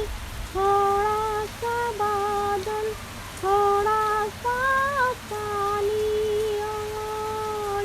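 A high voice humming a slow melody without words, holding long notes with small glides between them, over a faint steady hiss of rain.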